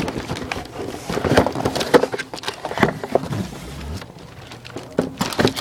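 Cardboard packaging and firework canister shells being handled: irregular rustling, scraping and light knocks as shells are taken out of their box.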